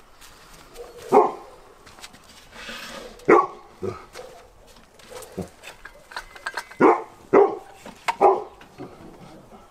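A dog barking, about seven separate barks spaced irregularly a second or two apart.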